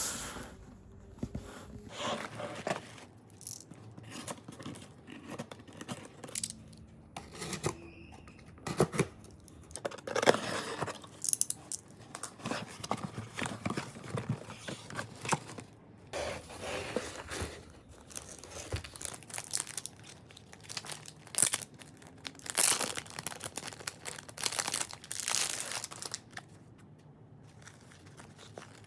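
A parcel being unboxed by hand: packaging tearing and crinkling in irregular bursts, with rustling and handling noises between them.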